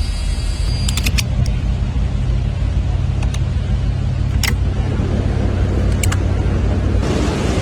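1985 Ford F-150 pickup's engine idling steadily, with a few short clicks over it.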